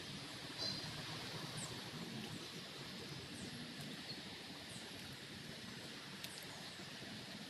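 Faint outdoor garden ambience: a steady background hum and hiss, with a few short, high chirps from small wild birds.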